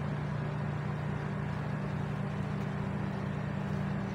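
Steady low machine hum at an even level, with a constant low drone and no changes.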